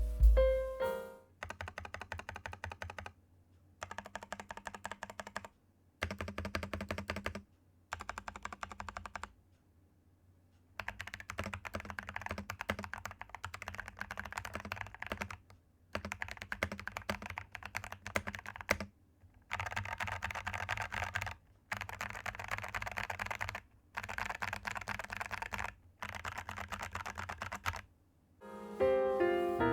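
CIY Tester 68 custom mechanical keyboard being typed on in bursts of a few seconds each, broken by short pauses: hand-lubed Ajazz Kiwi tactile switches in a foam-filled, tape-modded case, with GMK-clone keycaps. Brief piano music plays at the very start and end.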